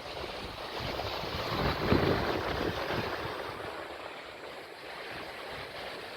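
Sea waves washing in, with wind gusting over the microphone; the sound swells about two seconds in, then eases off.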